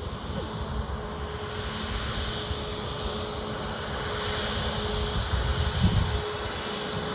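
Jet engines of a Boeing 737 MAX 8, CFM LEAP-1B turbofans, running with a steady whine over a broad rush, slowly getting louder as the jet moves along the runway. A low buffet of wind on the microphone about six seconds in.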